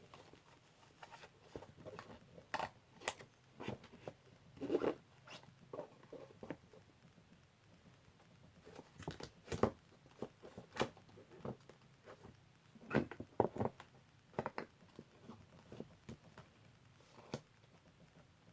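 Irregular light knocks, clicks and rustles of slime containers being handled and packed into a box.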